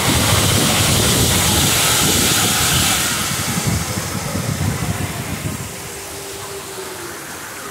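Rushing wind on the microphone and the rumble of a Dumbo the Flying Elephant ride vehicle in motion. It dies down about three seconds in as the vehicle comes down beside the ride's splashing fountains.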